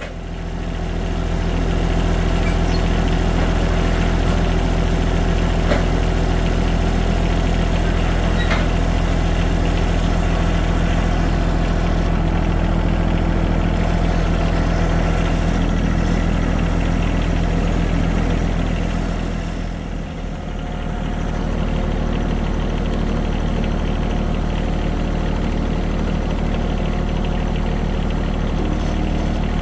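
Farm tractor engine running steadily at close range. About two-thirds of the way through it dips briefly in speed, then settles back into a steady run.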